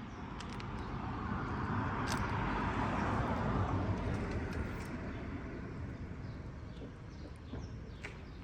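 A vehicle passing by: a rush of engine and tyre noise swells over the first three seconds, then fades away. A few faint clicks sound through it.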